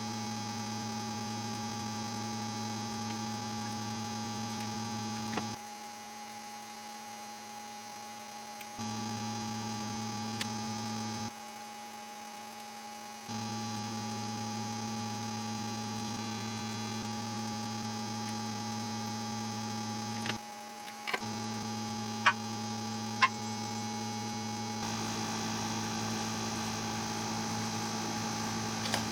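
Steady electrical hum that cuts out and comes back several times, with a few short clicks along the way.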